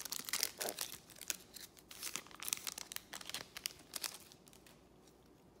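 Crinkly wrapper of a Panini Select baseball card pack being torn open and crumpled by hand, a dense run of sharp crackles that stops about four and a half seconds in.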